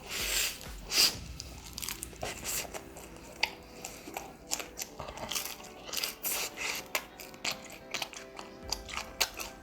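Close-up crunching and chewing of a leaf wrap of crisp pan-fried smelt (dori-baengbaeng), a run of short irregular crunches, over background music.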